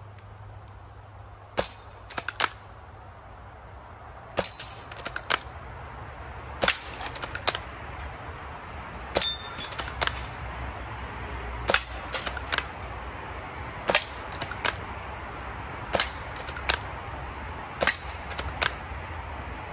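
Air rifle firing eight sharp pops, about one every two to two and a half seconds, each followed within half a second by a couple of lighter ticks.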